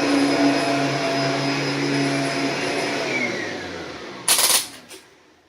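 Kirby G6 upright vacuum running steadily, then switched off about three seconds in, its motor whine falling in pitch as it spins down. A brief loud clatter comes near the end.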